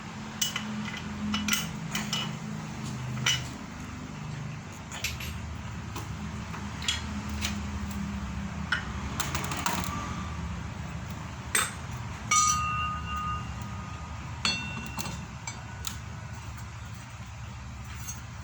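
Metal parts of a feed-pellet machine (a converted meat grinder) clinking and knocking as they are handled and fitted. There are scattered sharp clicks throughout and two ringing metal clanks near the end, over a steady low hum.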